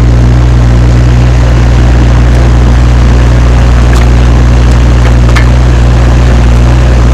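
Machinery running steadily: a loud, unchanging low hum with a few faint clicks.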